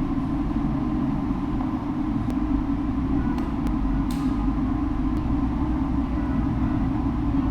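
Kawasaki Z1000's inline-four engine running steadily through an Orion full aftermarket exhaust, an even low rumble with no revving.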